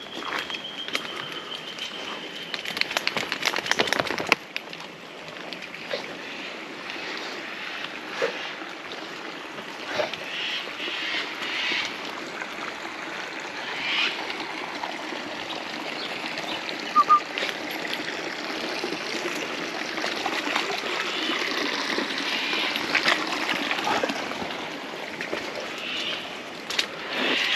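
Steady running water, as from a small stream, with scattered sharp clicks and knocks.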